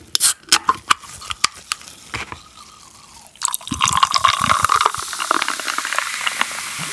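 A canned carbonated drink is opened with a few sharp clicks. From about three and a half seconds in it is poured into a glass of ice, the pour settling into a steady fizz.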